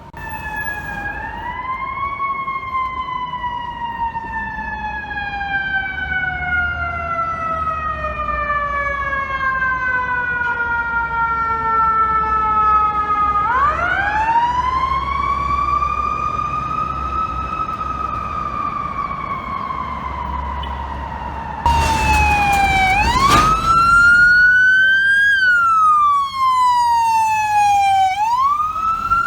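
Fire truck siren wailing in long, slow rises and falls over a low engine rumble. About three quarters of the way through it turns louder, with a short blast, and switches to quicker up-and-down sweeps.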